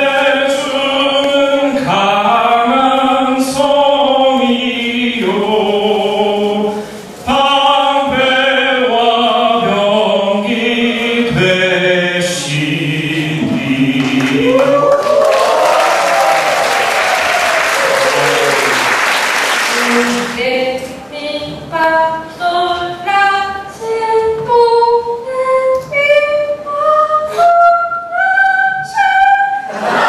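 Singing voices holding long notes with vibrato, then a swell of cheering and applause around the middle, then a voice singing a scale of short notes, each a step higher than the last, about two a second.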